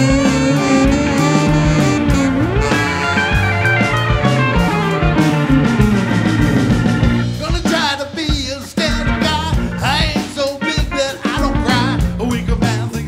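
Live band playing an upbeat ska-funk tune: a saxophone line over electric guitar, bass, drums and keyboards. About seven seconds in the texture changes and a singing voice comes in over the groove.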